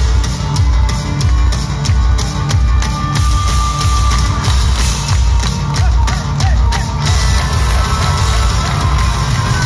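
Darksynth band playing live and loud, heard from the audience: pounding synthesizer bass and drums. The top end thins out, with sharp hits, for the first seven seconds or so, then the full sound returns.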